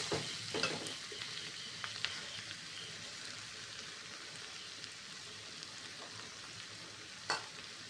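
Potatoes and spice masala sizzling in hot oil in a kadai, with a few scrapes and clicks of a slotted metal spatula against the pan in the first two seconds, then a steady sizzle. A single short knock near the end.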